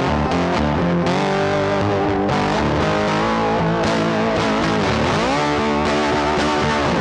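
Background rock music with a distorted electric guitar.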